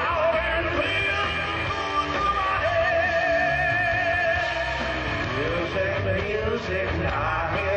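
Live rock band playing: a man singing into a microphone over drums and the rest of the band.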